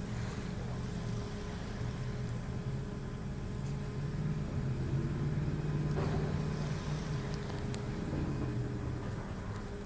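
A steady low droning hum made of several pitched tones that waver slightly, the strange noise heard at the harbor, with a brief knock about six seconds in.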